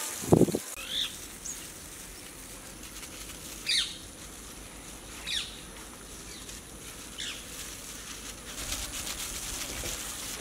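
A bird calling: four short chirps, each falling in pitch, spaced a second or two apart, over a faint steady hiss. A brief dull thump comes right at the start.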